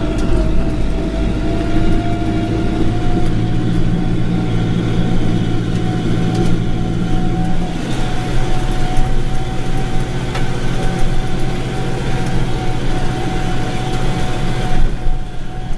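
Same Dorado 3-90 tractor's diesel engine running steadily under load while pulling a plough, heard from inside the cab, with a steady high whine over the engine sound.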